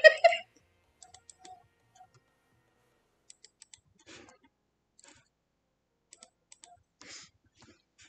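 Faint, scattered computer keyboard and mouse clicks, coming in small clusters of a few clicks every second or two.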